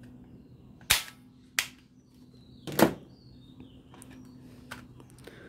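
Sharp plastic snaps and clicks from a toy revolver being handled: two snaps about a second in and a louder one near the middle, then a few faint clicks near the end, over a faint steady hum.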